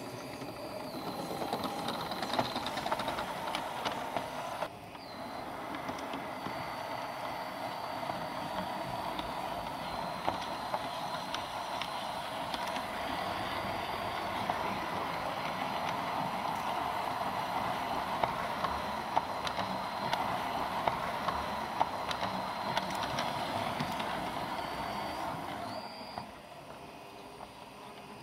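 Garden-scale LGB model train running along its track, heard from on board: a steady whir of the electric motor and gearing with a thin high whine that shifts in pitch, and occasional sharp clicks from the wheels on the rails. It drops quieter near the end.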